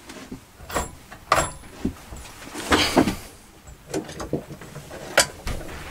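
Scattered clicks, taps and scrapes of hands handling the metal parts of a Mamod-parts model V8 steam engine, with one longer scrape about three seconds in. The engine is not running.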